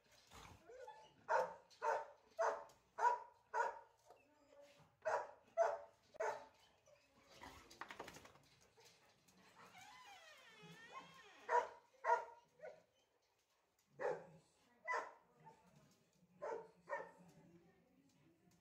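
A dog barking in short runs: five quick barks, a pause, three more, then three pairs of barks spread through the rest.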